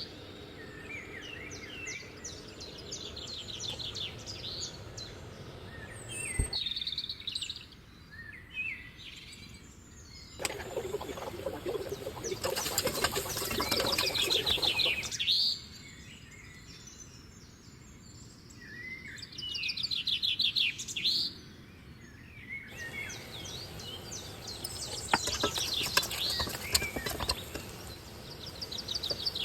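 Birds chirping and singing, with many short, rapid trills. From about ten to fifteen seconds a louder, even hiss rises under them, and the sound changes abruptly several times.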